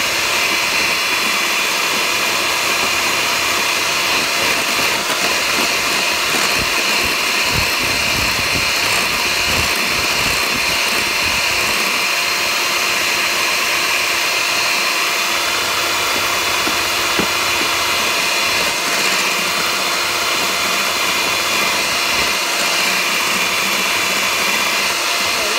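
Electric hand mixer running steadily, its beaters whipping egg whites and sugar in a glass bowl toward stiff, glossy peaks.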